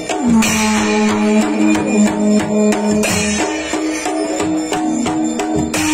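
Dhol and damau drums with large brass jhanjh hand cymbals playing a fast, even dance rhythm, the cymbals clashing along with the drum strokes. A steady held tone sounds under the beat.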